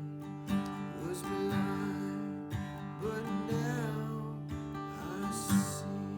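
Acoustic guitar music: chords strummed and left ringing, with a few sharper strums along the way.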